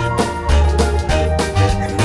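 Upbeat background music with a strong bass line and a steady drum beat.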